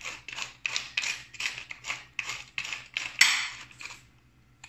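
Wooden pepper mill grinding black pepper: a quick run of gritty crunching strokes, about three a second, with the loudest stroke near the end before it stops about four seconds in.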